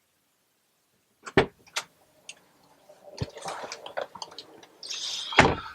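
Scattered knocks and clicks, with rustling in between, ending in a heavy thump near the end.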